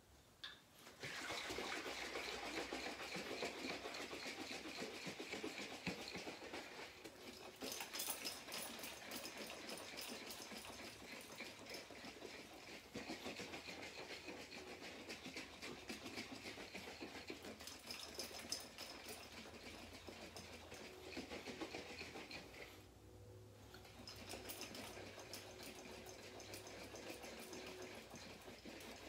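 Honey and water sloshing inside a one-gallon glass jug as it is shaken hard to dissolve the honey into the mead must, which also aerates it. The shaking starts about a second in and pauses briefly a few seconds before the end.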